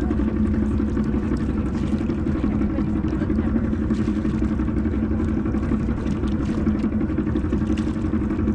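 Boat engine running steadily at a constant, low speed.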